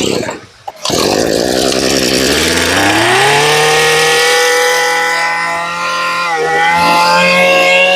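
Tanaka 22 cc two-stroke brush cutter engine catching just under a second in, then revving up over about two seconds to a high steady rev. The revs dip briefly about six seconds in and come back up, picking up strongly and quick on the throttle as a test run of the engine.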